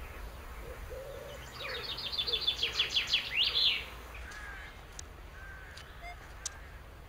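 Wild birds singing: one songbird's fast run of repeated high notes, ending in a flourish, is the loudest, from about one and a half to nearly four seconds in, with fainter chirps and calls around it.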